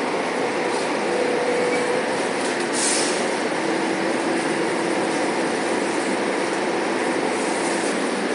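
Cabin noise inside a Volvo B9TL diesel bus under way: a steady drone of engine and road noise with a faint whine. There is a brief high rattle about three seconds in.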